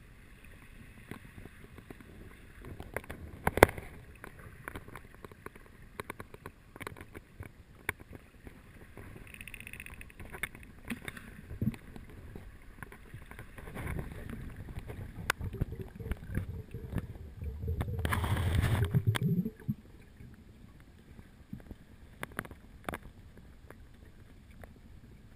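Underwater sound picked up by a camera in its housing: a faint background with scattered clicks and crackles, a sharp knock a few seconds in, and a louder rushing burst lasting about a second and a half near the end.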